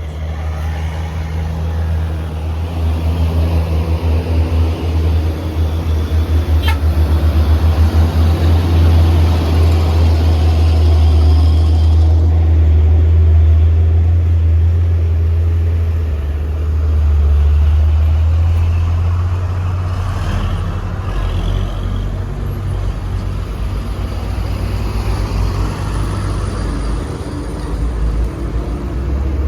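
Heavy truck's diesel engine working hard under load on a steep uphill climb, a deep steady running sound that swells and eases with the throttle. A single sharp click about seven seconds in.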